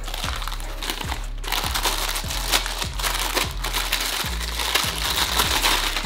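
Clear plastic packaging bag crinkling and rustling as a small SFX power supply is pulled out of it by hand, over background music with a steady bass-drum beat.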